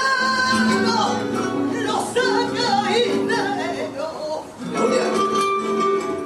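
Live flamenco music in soleá style: a voice singing long, wavering lines over flamenco guitar accompaniment, with a brief dip about four and a half seconds in.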